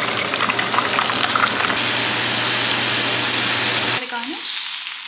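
Whole fish deep-frying in a pan of hot oil: a dense, steady sizzle and crackle over a low hum. About four seconds in it cuts off sharply to a quieter, thinner sizzle from a pan of sautéed onions.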